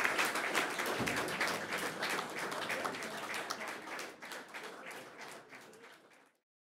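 Audience applauding, a dense patter of many hands clapping that fades and then stops abruptly about six seconds in.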